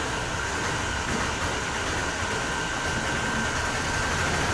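Steady rushing background noise with a thin, high, steady whine.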